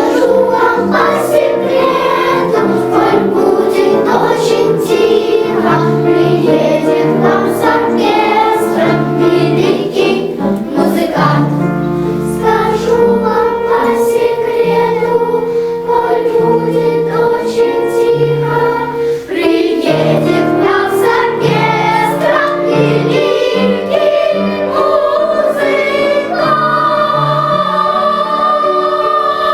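A children's choir singing a song over low, steady instrumental accompaniment.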